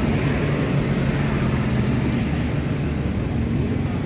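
Steady low engine hum of street traffic.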